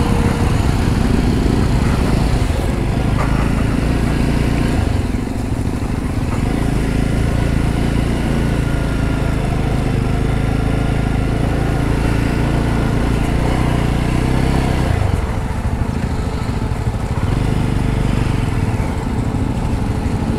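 Jawa 42 motorcycle engine running at low speed as the bike is ridden slowly over a rough dirt track. The engine note changes about five seconds in and again near fifteen seconds.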